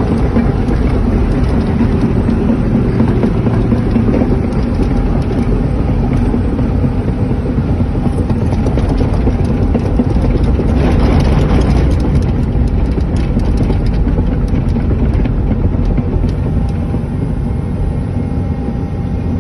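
Excavator's diesel engine running steadily under load as the machine travels on its tracks, heard from inside the cab, with faint clanking from the tracks. Around halfway a brief hiss swells up and fades.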